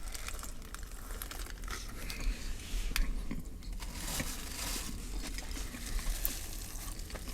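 Sandwich wrapper crinkling faintly as it is handled, with scattered small rustles and clicks.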